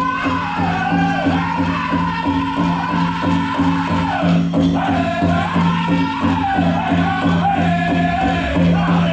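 Powwow drum group singing a chicken dance song: high-pitched voices in falling phrases over a steady beat on the big drum.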